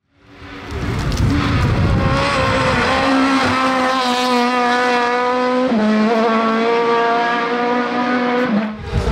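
Race car engine running hard at high revs on a hill climb, its note held fairly steady and dropping a step about halfway through and again near the end.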